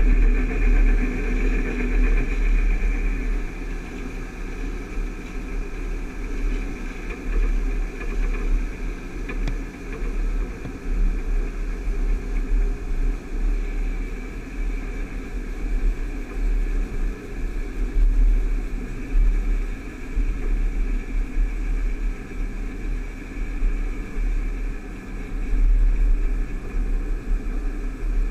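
Steady drone of farm machinery as a John Deere combine unloads grain from its auger into a moving grain cart, over a fluctuating low rumble. It is a little louder in the first few seconds.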